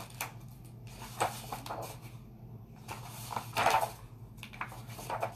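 Handling noise as a picture book is opened and its pages handled on a wooden table: soft knocks and paper rustles, the loudest a brief rustle a little after halfway, over a steady low hum.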